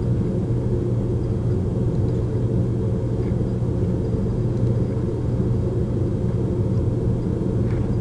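Steady low background hum, even in level throughout.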